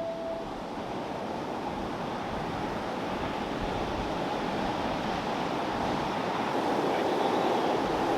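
Ocean surf: a steady wash of breaking waves, slowly growing louder.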